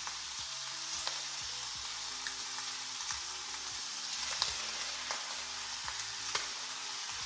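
Ham sizzling steadily in hot olive oil in a frying pan, with a few short clicks and scrapes as vegetables are dropped in and stirred around.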